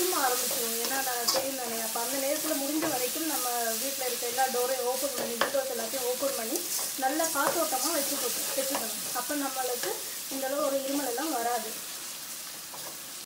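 A metal spatula stirring and scraping onions, curry leaves and chillies frying in oil in a metal kadai, in repeated strokes over a steady sizzle. The stirring quietens near the end.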